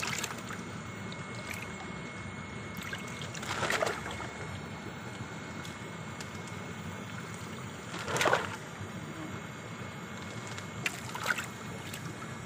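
Water sloshing in a shallow basin of koi as hands catch and hold a fish, with three louder splashes about four, eight and eleven seconds in, over a steady hiss.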